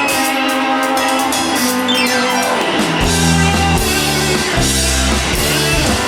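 Live rock band playing an instrumental passage on guitars, keys and drums. About two seconds in, a steeply falling slide in pitch leads into heavy bass notes that come in about three seconds in.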